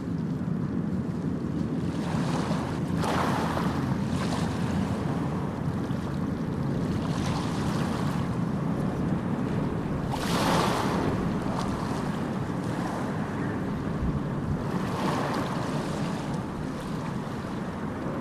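Sea waves washing in along the shore, several louder washes swelling and fading, the strongest about ten seconds in, over a steady rumble of wind on the microphone.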